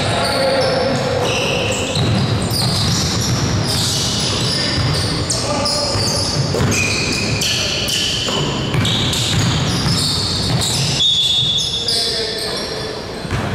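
Basketball game play in a gym: the ball bouncing on the court and sneakers squeaking in short, frequent chirps.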